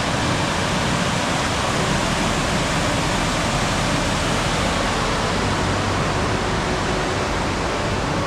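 Steady, even rush of a waterfall: the Amnicon River pouring over its falls.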